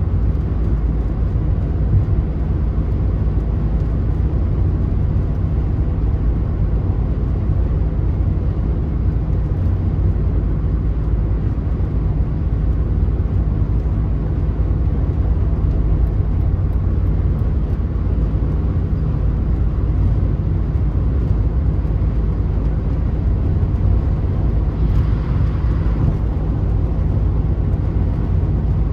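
Steady tyre and wind noise of a Mercedes-Benz at motorway speed, heard from inside the cabin as a low, even rumble, with a slight swell in the hiss about 25 seconds in.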